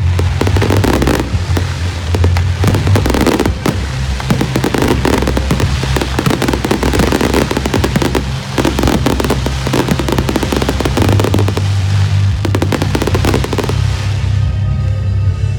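Fireworks going off in a dense, continuous crackle of rapid bangs that thins out near the end, over music with a steady low bass.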